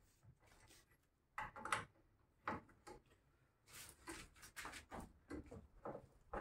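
Faint knocks and clicks of hand tools on a car's front wheel and jack: a few single knocks, then a quicker run of clicks from about the middle on, as the wheel is loosened and the front of the car jacked up.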